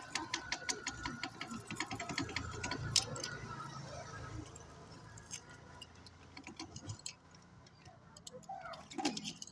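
Hand socket ratchet with a wooden handle clicking rapidly as it turns a nut. The clicks die away about halfway through.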